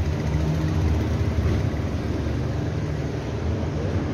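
Steady low rumble of road traffic, vehicle engines running.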